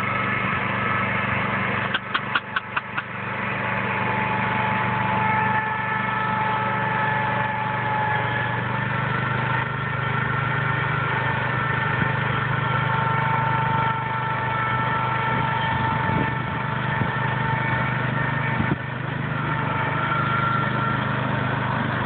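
Small garden tractor engine running steadily at low speed while towing, with a steady higher whine above the hum. About two seconds in there is a quick run of about seven sharp clicks or knocks.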